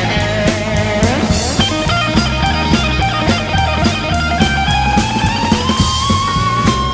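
Instrumental blues-rock track: electric guitar playing bent lead notes over steady drums and bass. About five seconds in the guitar slides up to a long held note.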